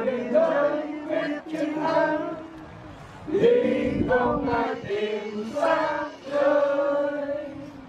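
A group of voices chanting in long held, sung notes, with short breaks between phrases.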